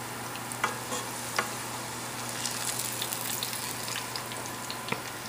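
Sliced onions sizzling steadily in hot oil in a frying pan, with a few sharp clicks of metal tongs against the pan as the fried onions are lifted out.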